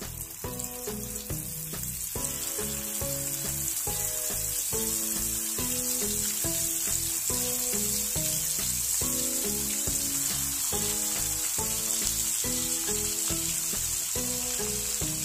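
Masala-coated fish pieces shallow-frying in hot oil, a steady sizzle that fills out about two seconds in as more pieces go into the pan. Background music with a repeating melody plays under it.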